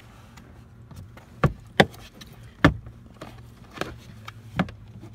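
Plastic glove box of a 2013 Dodge Avenger being pressed into the dash, its clips snapping into place: a few sharp clicks and knocks, the loudest three between about one and a half and three seconds in, then fainter ones, over a low steady hum.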